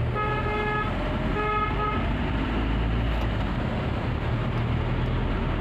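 Vehicle horn tooting twice in short blasts in the first two seconds, then the steady low rumble of the engine and road noise heard from inside the cab.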